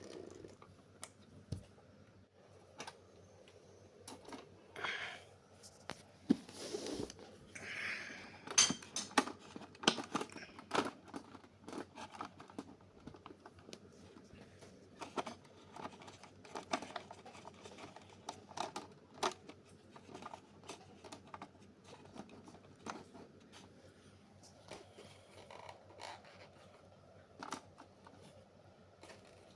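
Small objects being handled: irregular light clicks and taps with a few short scrapes, busiest between about five and eleven seconds in.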